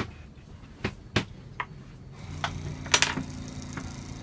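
A few separate sharp clicks and taps, then a low steady motor hum coming in about halfway, with one louder clack near the three-second mark.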